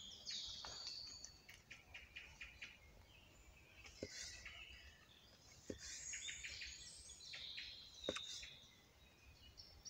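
Woodland birds chirping and singing, with three soft knocks, about 4, 6 and 8 seconds in, as a machete blade cuts through food onto a wooden log; the last knock is the loudest.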